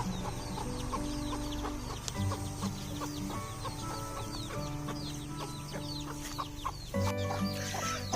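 Chickens clucking, with many short high calls throughout, over steady background music.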